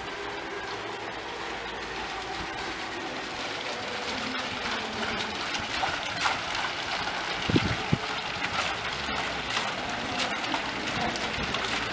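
Small courtyard fountain: water welling out of the top of a concrete column and splashing into its basin, a steady splashing that grows louder as it comes nearer. A brief low thump about seven and a half seconds in.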